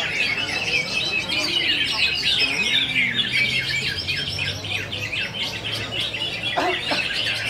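Several caged cucak ijo (greater green leafbirds) singing at once in a contest, a dense unbroken stream of fast, overlapping chirps and trills, with one harsher call about two-thirds of the way through.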